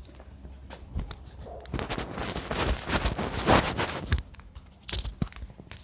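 Rustling and scraping with many scattered clicks, loudest in the middle.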